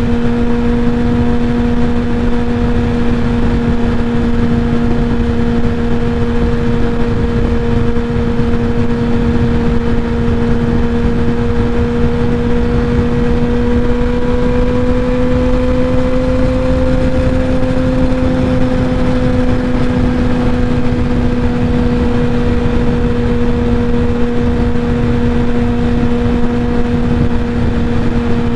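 Kawasaki ZX-10R inline-four with a Graves titanium full race exhaust cruising at steady freeway speed: a steady engine drone that rises slightly in pitch about halfway through and settles back, over constant wind rush.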